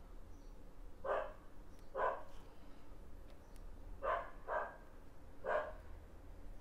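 A dog barking: five short single barks, unevenly spaced, two of them close together about four seconds in.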